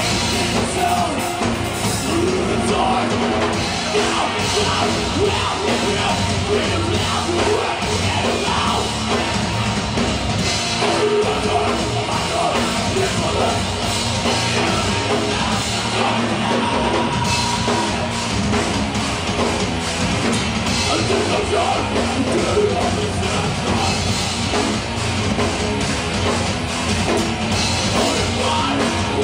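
Live heavy metal band playing: distorted guitar and bass over a drum kit, with a vocalist singing into the microphone, dense and steady throughout.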